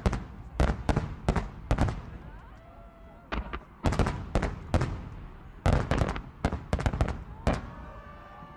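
Fireworks shells bursting: sharp bangs in quick clusters of two to four, with echoing tails between them, and faint voices of onlookers underneath.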